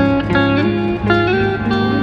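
Background music: guitar-led track with sliding notes over a steady bass.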